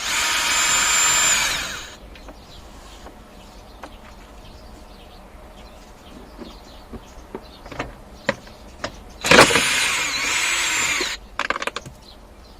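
Cordless power driver spinning out a 10 mm bolt from the dashboard's metal frame: two runs of about two seconds each, a steady high whine that drops in pitch as the motor stops, with small clicks of handling in between.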